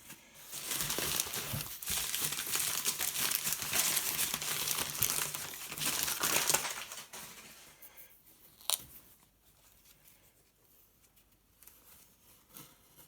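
Packing wrap crinkling and tearing as a knife is unwrapped, loud for about six seconds and then fading to quieter handling, with one sharp click about two-thirds of the way through.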